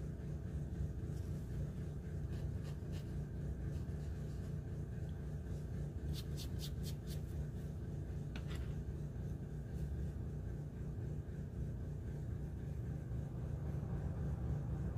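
Coloured pencil scratching on paper in short strokes, with a quick run of about five strokes about six seconds in, over a steady low hum.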